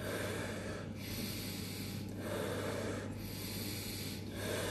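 A person breathing forcefully in a steady rhythm during a pranayama breathing exercise, each rushing breath in or out lasting about a second, with a short break between them.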